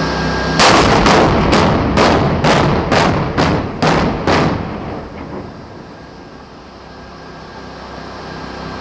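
A rapid series of about nine sharp explosive bangs, roughly two a second, from demolition charges being fired for a building implosion, each echoing as it dies away.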